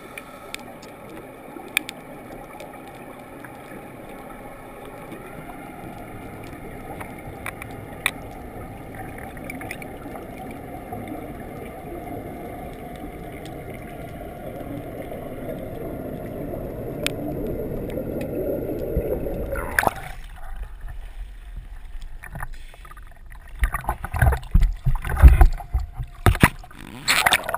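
Underwater rush of water past a GoPro dive housing, with the steady hum of a diver's electric underwater scooter, growing louder as the diver rises. About twenty seconds in the camera breaks the surface, and water splashes and sloshes against the housing.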